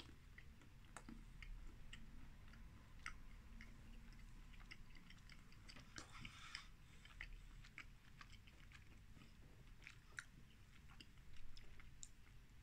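Faint chewing of a chocolate bar with caramel and hazelnut pieces, with small scattered clicks and crunches.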